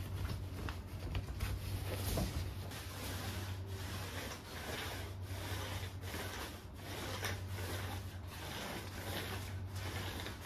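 Repeated rubbing strokes against a surface, about two a second, over a steady low hum.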